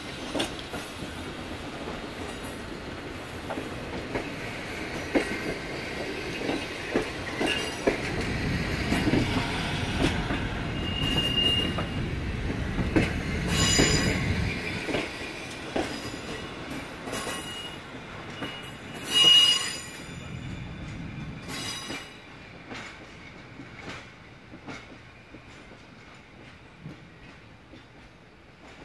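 Passenger coaches rolling along the track, with wheels clicking over rail joints and brief wheel squeals twice, the louder one about two-thirds of the way in. The sound fades as the train draws away.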